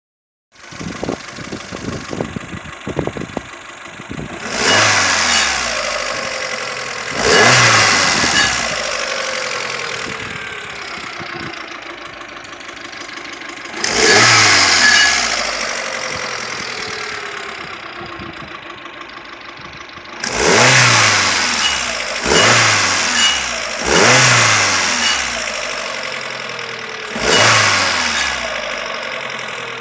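Kia Picanto engine given seven quick throttle blips, each revving up suddenly and then sinking slowly back towards idle over several seconds, with a few sharp clicks in the first few seconds. This is the revving under which the owner hears a strange noise, cause unknown.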